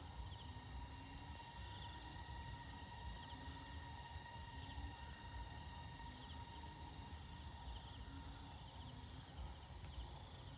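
Evening chorus of insects, crickets among them: a steady high-pitched buzz, with a louder pulsing trill for about a second about five seconds in.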